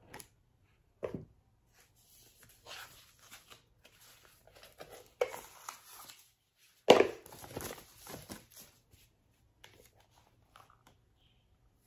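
Hands opening a small cardboard jewellery box: scrapes and knocks of the lid and sleeve and rustling of its paper wrapping, in irregular bouts with the loudest knock about seven seconds in.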